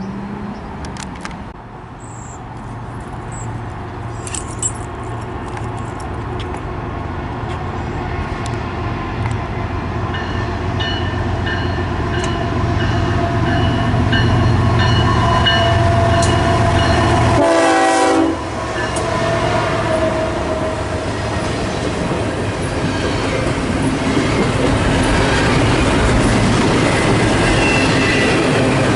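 A diesel-locomotive train approaches and passes, with a deep engine rumble growing louder through the first half. The locomotive's horn sounds around the middle, and the wheels clatter on the rails.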